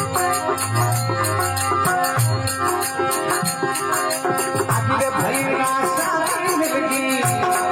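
Rajasthani folk bhajan music without words: a fast, even shaking percussion rhythm over repeated drum strokes and a held melodic line.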